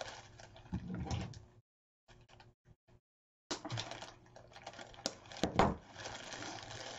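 Artificial flower stems and leaves rustling and clicking as a bunch is handled and trimmed with wire cutters, with sharp clicks about five seconds in. The sound cuts out completely for about two seconds near the middle.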